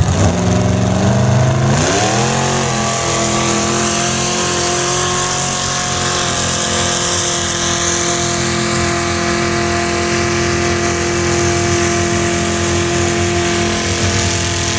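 Lifted 4x4 pickup truck's engine revving up hard as it launches, the pitch climbing in two steps over the first couple of seconds. It is then held at steady high revs while the truck churns down the mud pit.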